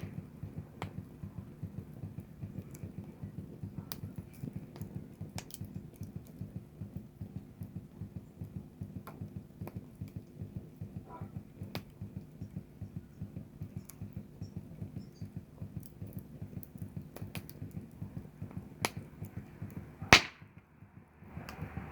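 Wood campfire burning: a steady low crackle with frequent irregular pops and snaps, and one loud sharp snap near the end.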